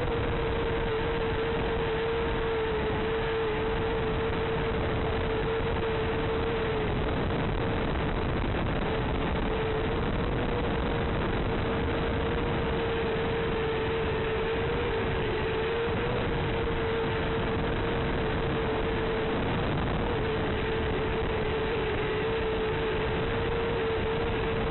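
Steady static hiss with a constant mid-pitched tone: the empty audio channel of an analog FPV video receiver as recorded by the DVR, not the quad's motors.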